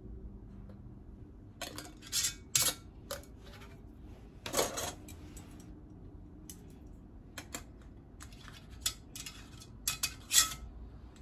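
Metal canning lids and screw bands clinking and clattering against glass quart mason jars as they are handled and set on. It comes as a dozen or so separate sharp clinks at irregular intervals, with a longer clatter about halfway through and the sharpest clink near the end.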